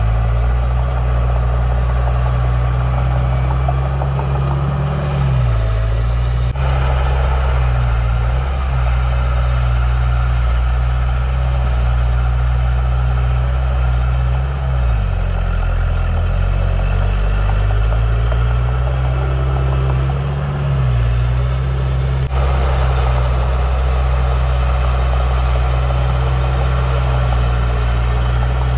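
Heavy diesel engine of earthmoving equipment running steadily, its pitch dipping and coming back up a few times as the revs change.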